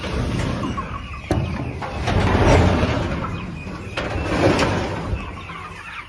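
Rustling and scraping with a few sharp knocks as a chicken coop door is opened, with chickens clucking inside.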